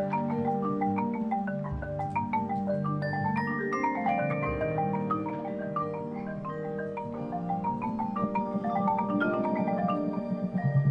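Drum corps front ensemble of marimbas and other mallet keyboards playing quick runs of struck notes over held low chords.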